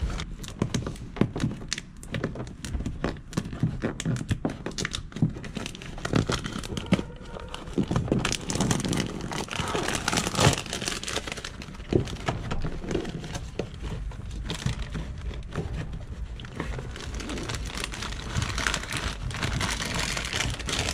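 Crinkling and rustling as the backing film is peeled off a self-adhesive Armaflex foam rubber sheet and the sheet is worked by hand into a van's sheet-metal wall panel, with occasional light thunks against the panel.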